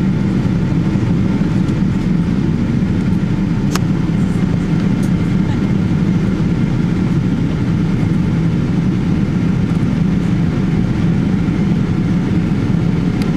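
Steady low rumble of a Boeing 777's engines and rushing air, heard inside the passenger cabin as the airliner climbs after takeoff, with one faint click about four seconds in.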